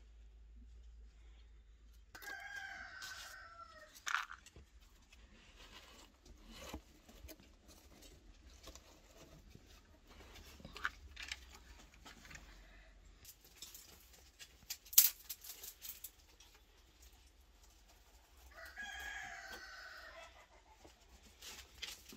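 A rooster crows twice, about two seconds in and again near the end, each call lasting about two seconds. Between the calls come scattered clicks and snaps, with one sharp knock about two-thirds of the way through as the loudest sound.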